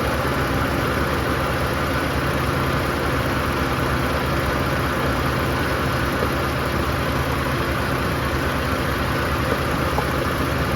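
2007 Dodge Nitro's 3.7-litre V6 idling steadily, with the air conditioning running at full blast during a refrigerant recharge.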